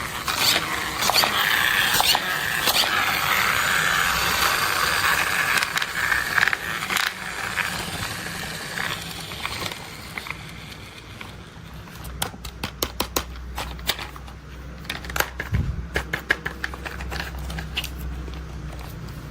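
Plastic toy construction vehicles handled and played with. For the first several seconds there is a steady scraping rattle with clicks, then a run of sharp separate clicks over a faint low hum.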